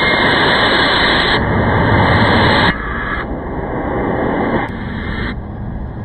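Fallen ceiling fan spinning on a hard floor: a loud, rough scraping whir that drops suddenly in steps about halfway through and again near the end.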